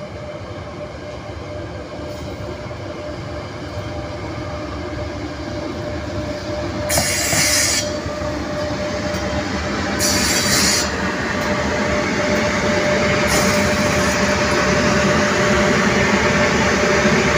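ЭП1 AC electric passenger locomotive hauling a train of passenger coaches past at speed, growing steadily louder as the coaches roll by. Over the rumble of wheels on rail there is a steady hum. From about the middle on come three short bursts of hiss, a few seconds apart.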